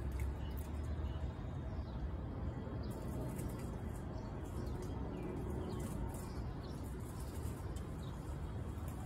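Birds chirping in short, high calls that come and go irregularly, over a steady low background rumble.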